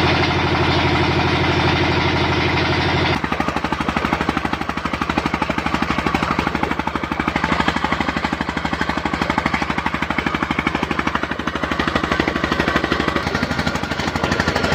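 Petter diesel engine running steadily under load, belt-driving a tube-well pump, with a rapid, even thumping beat. About three seconds in the sound changes abruptly and the beat becomes more distinct.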